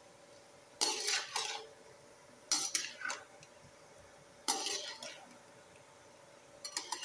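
A slotted metal spoon stirring and scraping chunks of mutton and onion around a metal karahi, in separate scraping strokes about every two seconds.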